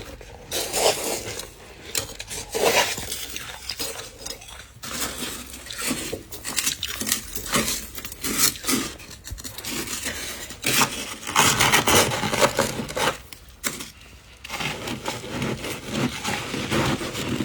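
A scraper scraping and chipping frozen frost and ice in a container, in a run of irregular scrapes and clinks that grows busier about two thirds of the way through.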